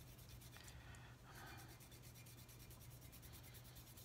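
Faint, rapid scraping of a small scraper across the asphalt-coated steel of a double-bit axe head, lifting solvent-softened asphalt, over a steady low hum.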